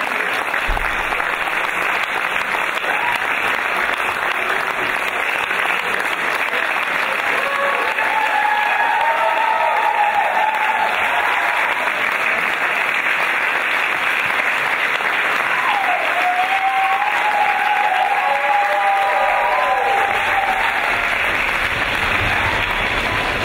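Audience applauding steadily after a stage performance, with a few calls or cheers rising above the clapping partway through and again later.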